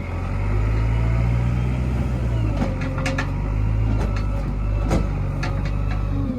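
Heavy diesel earthmoving machinery running steadily at a low pitch. Sharp knocks and clanks come now and then, about five of them, from about two and a half seconds in.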